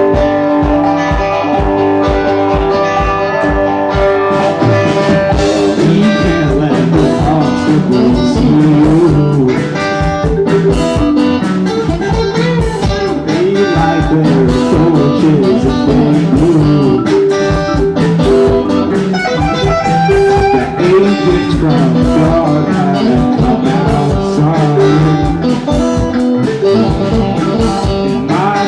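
Live rock band playing an instrumental passage: a guitar lead with bending, wavering notes over bass and a steady drum beat.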